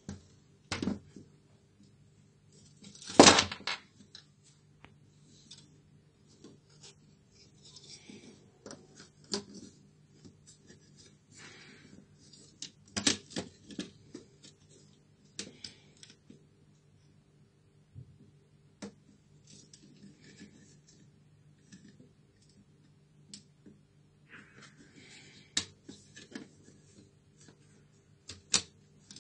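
Irregular clicks, taps and knocks of plastic and circuit-board laptop parts being handled as the motherboard is pressed into the plastic base and a ribbon cable is fitted, with the loudest knock about three seconds in, over a faint steady hum.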